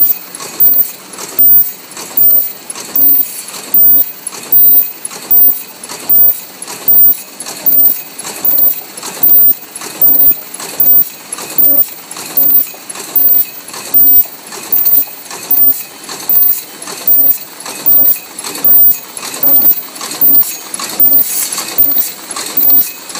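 MB-12/22 PLC-controlled medium-speed paper cup forming machine running, a loud repeating metallic clatter at an even beat of about four strokes every three seconds, each beat one machine cycle.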